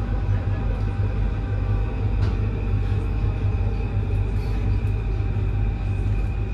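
Paris Métro line 5 train, a steady low rumble with a few faint steady whines above it and a single light click about two seconds in.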